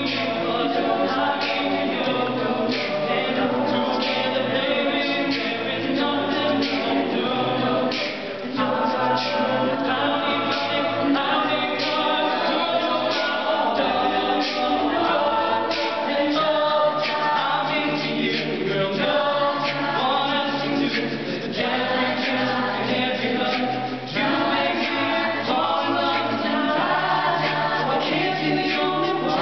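Mixed a cappella vocal group, men's and women's voices, singing a pop song arrangement in close harmony with no instruments.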